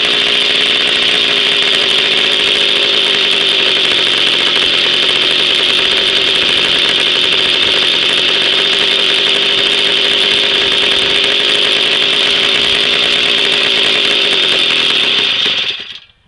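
A 1966 Jawa 50 type 05 moped's 50 cc two-stroke engine, fitted with a Polish muffler, running steadily on its first run after a rebuild and 20 years laid up. It cuts off abruptly near the end.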